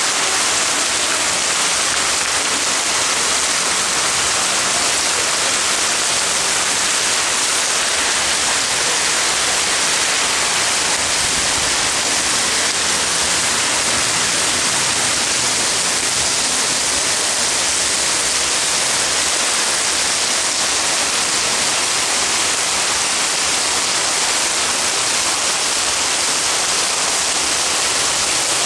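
Heavy, wind-driven tropical downpour: a loud, dense, unbroken hiss of rain pouring onto tiled roofs and the street.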